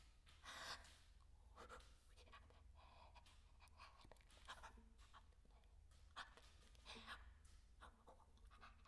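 Near silence: room tone with a steady low hum and a few faint, brief rustles.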